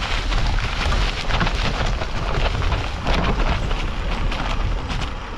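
Wind buffeting the microphone over the rattle of a mountain bike on rough trail: a steady, loud rumble full of small knocks and clatter.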